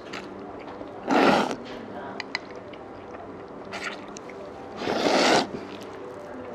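A person slurping noodles from chopsticks, two loud half-second slurps about a second in and about five seconds in, with small clicks of chewing and chopsticks between.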